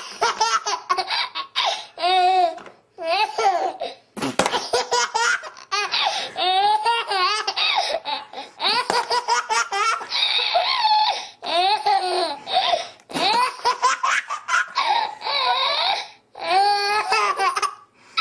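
A baby laughing in long runs of rapid, pulsing laughs, with short pauses between them.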